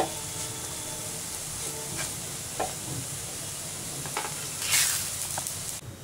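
Shredded cabbage, onion and green chilli sizzling in oil in a nonstick frying pan, stirred with a wooden spatula that scrapes the pan now and then. The sizzle stops suddenly just before the end.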